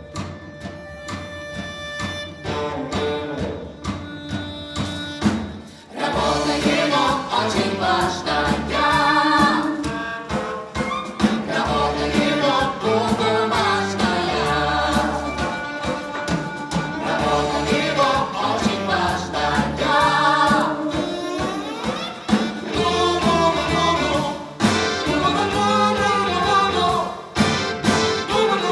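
An orchestra and singers performing a song. A quieter instrumental passage of held notes gives way, about six seconds in, to voices singing over the band with percussion.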